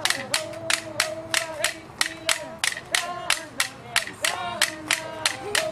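Kashia Pomo dance song: voices singing long held notes over a steady, sharp clacking beat of about four strokes a second.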